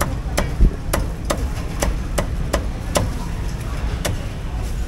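Cleaver chopping stewed duck on a thick round wooden chopping block: about nine sharp chops, roughly two a second, with a short pause after about three seconds. A steady low rumble runs underneath.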